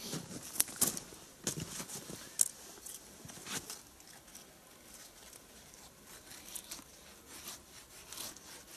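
Knife blade shaving thin curls off a wooden stick to make a feather stick: a series of short, irregular scraping strokes, busier in the first few seconds and fainter after.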